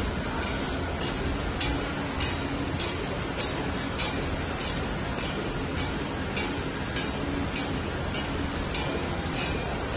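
Square cotton pad making machine running at about 600 pads a minute: a steady mechanical hum with sharp clicks repeating a little under twice a second.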